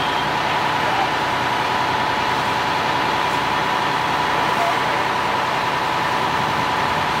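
Fire apparatus engines running steadily, a continuous heavy engine drone with a steady high whine over it.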